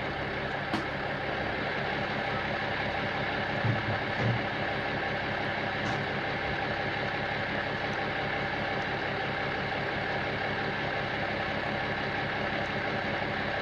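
Military 6x6 truck's diesel engine idling steadily, with a couple of low thumps about four seconds in and a few faint clicks.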